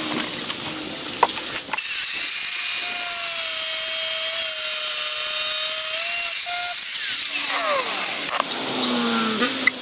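Angle grinder with a cut-off wheel cutting through an annealed steel file. After a few clicks, the motor runs at speed for about five seconds, with a high hiss of the wheel biting the steel over a steady whine. Then it is switched off and winds down with a falling whine.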